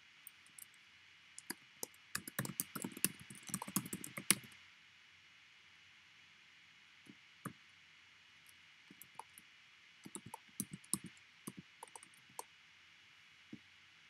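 Faint, rapid light clicks and taps in two flurries, a dense one about two seconds in and a sparser one about ten seconds in.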